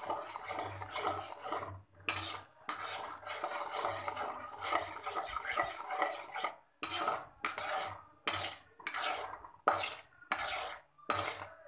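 Fresh cream (malai) being stirred and scraped around a kadhai as it melts over the heat. The scraping is nearly continuous at first, then breaks into separate strokes, about one every half second to second, in the second half.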